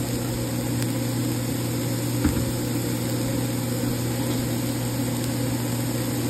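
Steady electric motor hum from a kitchen appliance, with one light knock about two seconds in.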